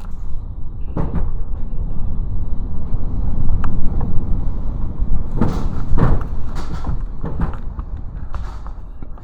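Typhoon-force wind buffeting the microphone in a deep, gusting rumble, with several knocks and rattles, the loudest a cluster about two-thirds of the way through.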